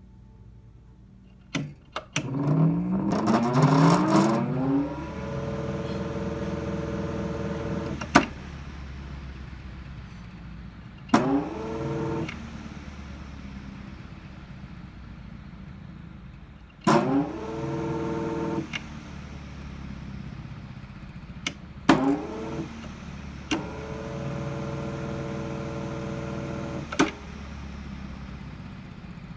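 GE electric fan switched on and off several times: each time a switch click, then a motor hum whose pitch rises as the fan spins up and holds steady, until another click turns it off. This happens about four times over a steady low hum.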